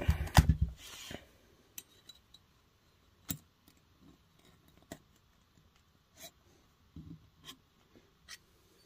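Handling of a piston ring, cylinder and feeler gauge on a workbench. A few dull thumps at the start, then scattered light metallic clicks and taps as the freshly filed ring is set back into the two-stroke cylinder bore to re-check its end gap.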